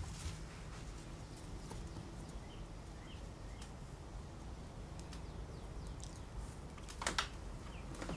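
Quiet room tone with faint, scattered bird chirps. About seven seconds in there is a short, breathy burst of noise.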